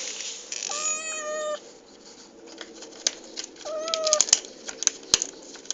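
Domestic cat meowing twice, two drawn-out meows to be let in, followed by a run of sharp clicks or taps.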